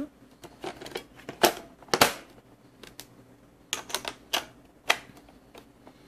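Sharp plastic clicks and knocks at irregular intervals as the battery cover of a WAP Robot W100 robot vacuum is handled and snapped back over its battery compartment, the loudest about two seconds in.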